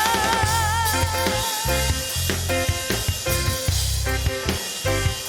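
Worship band playing on keyboard and drum kit: steady bass and keyboard chords under repeated drum hits. A held, wavering note fades out about two seconds in.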